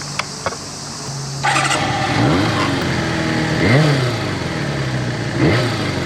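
Kawasaki Zephyr 400 inline-four motorcycle engine running steadily, then getting louder about one and a half seconds in. Its revs rise and fall three times.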